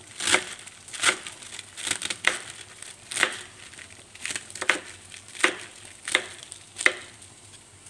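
Kitchen knife slicing napa cabbage thinly on a wooden cutting board: about ten cuts at a steady pace, the last a second before the end.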